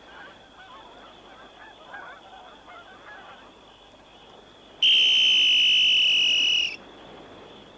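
Geese cackling faintly. About five seconds in, a loud, steady, high whistle-like tone sounds for about two seconds and then cuts off suddenly.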